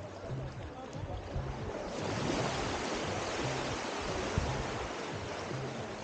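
Small waves washing up onto a sandy beach at the water's edge, the wash swelling about two seconds in and then holding steady.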